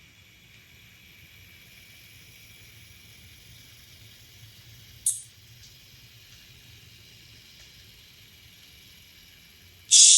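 N scale EMD SD40T-2 model locomotive's motor and gear drive running with the decoder sound muted: a faint, steady whir, nice and quiet. A short hiss cuts in about halfway, and a louder one comes near the end.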